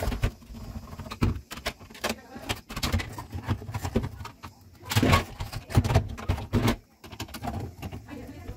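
Irregular clicks, knocks and rattles of refrigerator parts being handled during disassembly.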